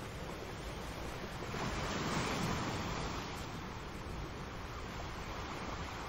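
Sea surf washing over a rocky shore, a steady rush of water with one wave breaking louder about two seconds in.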